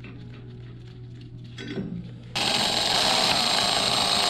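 Cordless electric ratchet running steadily as it drives in the Torx bolts of a motorcycle's rear brake rotor. It starts suddenly about halfway in, after a few quiet handling sounds.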